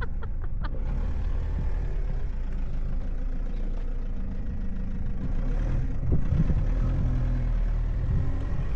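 Camper van's engine running as the van drives across wet, muddy ground, the engine getting louder about six seconds in.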